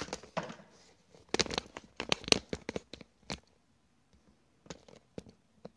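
Handling noise from the recording phone being gripped and repositioned: a quick flurry of sharp clicks and rubs, then a few scattered clicks near the end.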